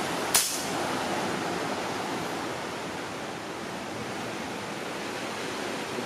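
A single sharp shot from a PCP air rifle about a third of a second in, over the steady wash of sea surf.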